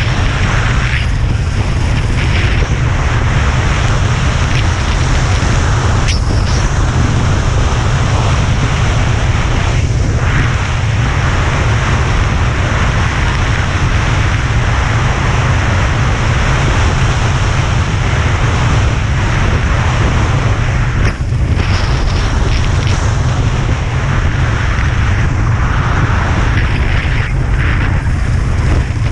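Heavy wind buffeting on a GoPro's microphone while skiing downhill at speed, a steady low rumble under the continuous hiss of sliding over groomed snow.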